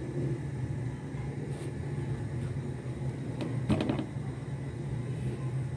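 A steady low hum like a fan or appliance running, with a short burst of clicks and clatter about three and a half seconds in.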